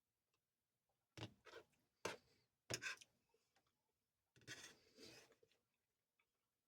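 Close-up eating sounds: a few short chewing and mouth noises in the first three seconds, then a longer one about four and a half seconds in, against near silence.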